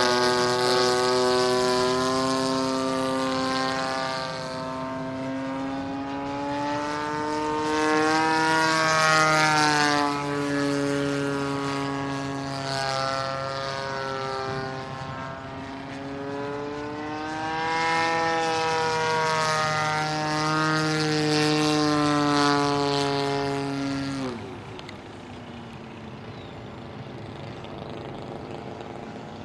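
Seagull Edge 540 radio-controlled model plane's engine and propeller running at high power, its pitch rising and falling as the plane manoeuvres. Near the end the power is cut back, the pitch drops and the sound falls to a quieter hum.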